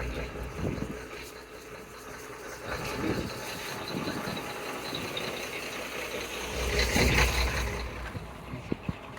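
Street traffic: motor vehicle engines running and passing, with the loudest vehicle going by about seven seconds in.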